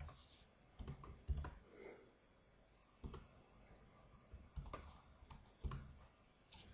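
Computer keyboard typing: scattered single keystrokes and short groups of two or three, with pauses between them.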